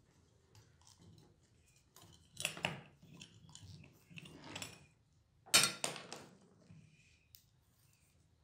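Rusty metal parts of a CCTV camera housing scraping and clinking as the mounting bracket is worked out of the cylindrical housing. There are a few short bursts of scraping, the loudest about five and a half seconds in.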